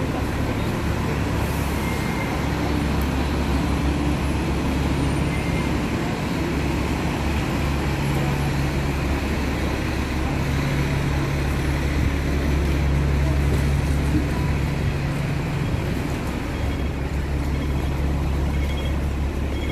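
Steady road traffic on a busy city street: a continuous low rumble of buses and cars, with an engine hum running underneath.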